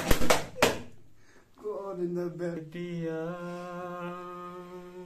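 A quick flurry of hand slaps on a person about four in under a second, the penalty for laughing in a no-laughing game. Then a man's voice holds one long steady sung or hummed note.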